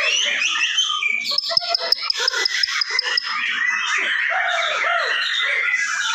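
Several caged white-rumped shamas singing at once: a dense, overlapping chorus of whistles, chirps and runs of rapid repeated high notes.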